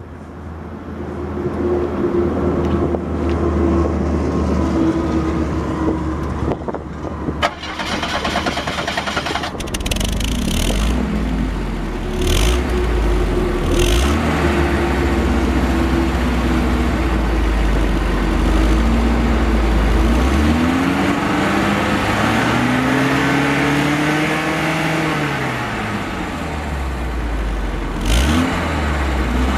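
Exhaust of a Volvo 740's B230K 2.3-litre four-cylinder engine, heard at the tailpipe with the catalytic converter removed. It idles steadily for the first two-thirds, then is revved up and let fall back several times near the end.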